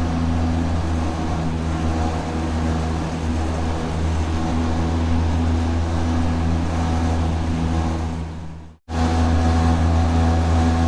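Industrial factory machinery running: a steady low hum with a whirring, rotating-machine drone over it. About nine seconds in the sound fades out, goes silent for a split second, then comes straight back at full level.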